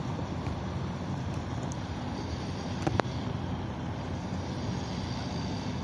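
Steady low rumble of a small boat's motor running, mixed with wind and water noise; a single sharp click about three seconds in.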